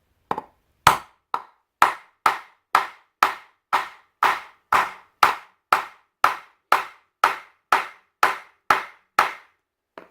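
Steady, evenly spaced knocks, about two a second and some nineteen in all, as a tight-fitting wooden handle is driven down into a small ball peen hammer head.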